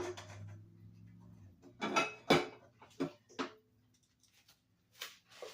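A handful of sharp clinks and knocks of kitchen dishes and utensils being handled, the loudest about two seconds in. A low hum runs under them and stops about a second and a half in.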